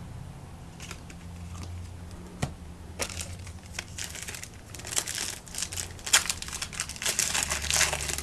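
Crinkling and tearing of a trading-card pack's foil wrapper as it is opened, the rustle growing louder and busier over the last few seconds.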